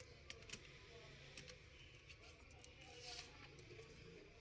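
Near silence with a few faint, scattered clicks of laptop keys being pressed down by hand across a newly fitted Lenovo ThinkPad Yoga 11e keyboard.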